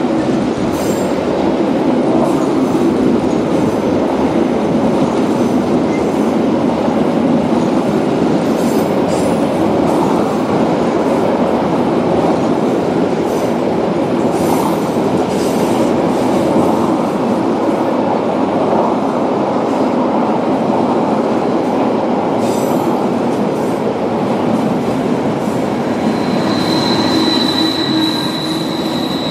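Metre-gauge car-carrying shuttle train rolling steadily past at close range, its wheels rumbling on the rails with occasional brief high squeaks and clicks. Near the end the Ge 4/4 electric locomotive draws level, and a steady high whine comes in.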